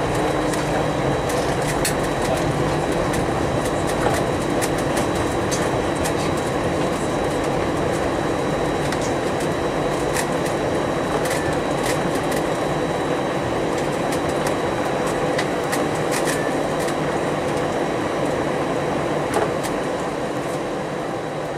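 Airliner cabin noise on the runway after landing: a steady rumble of engines and rolling wheels, with scattered light clicks and rattles of cabin fittings and a faint steady high whine.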